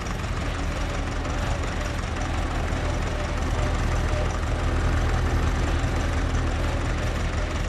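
Heavy engine running steadily with a low drone, a little louder around the middle.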